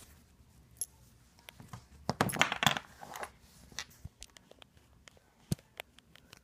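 Handling noise from wiping a leather strap with a cloth: scattered light clicks and taps of its metal buckle, with a louder rustling scrape a little past two seconds in.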